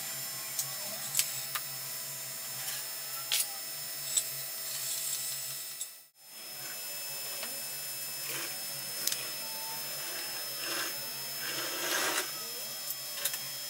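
Workshop room sound: a steady low hum with scattered short clicks and knocks of tools and metal parts being handled. The sound cuts out briefly about six seconds in.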